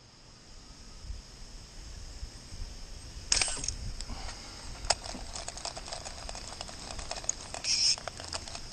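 Insects buzzing steadily in a high pitch, with two louder buzzing bursts, one about three seconds in and one near the end. Scattered light clicks are heard throughout.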